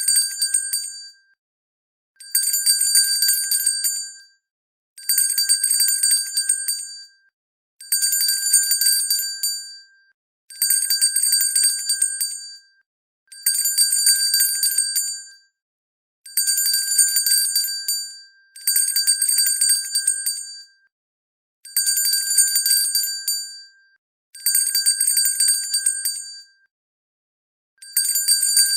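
A hand bell rung in short bouts, about two seconds of fast clapper strikes at a time with brief pauses between, over and over. It gives a bright, high ringing.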